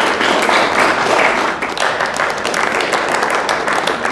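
Audience in an auction room applauding steadily, greeting the winning bid on a lot just sold.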